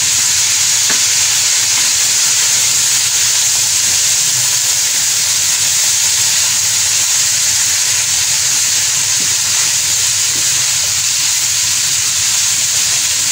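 Shredded cabbage, carrot, capsicum and chicken sizzling in a nonstick wok as they are stir-fried with a silicone spatula: a steady high hiss.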